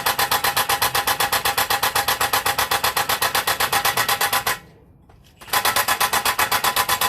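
A power tool running in rapid, even pulses, stopping abruptly about four and a half seconds in and starting again a second later.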